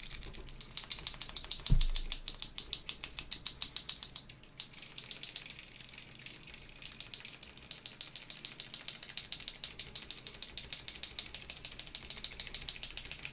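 Posca paint marker being shaken hard, its mixing ball clicking inside the barrel in a fast, even rattle, to mix the paint in a new, still-dry marker. A single dull thump about two seconds in.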